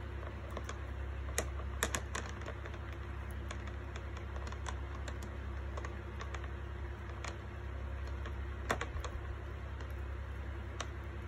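Glass marbles in a shallow water-filled plastic tub clicking and knocking against each other as a pet rat paws and noses through them: scattered irregular clicks, a quick cluster about two seconds in and a sharper knock near the end, over a steady low hum.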